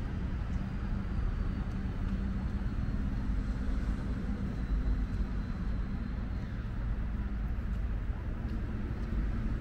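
Steady low outdoor background rumble with a faint constant hum running under it.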